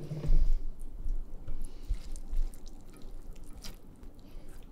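A few light clicks and soft handling of a spoon against a pot as parboiled rice and roasted noodles are spooned in for steaming.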